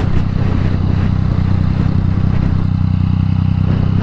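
Yamaha MT-09's three-cylinder engine with an Akrapovič exhaust running at a steady speed.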